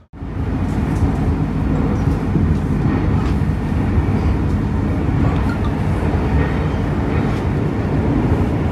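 Istanbul M5 line metro train running, a steady, loud, deep rush of wheels on the rails.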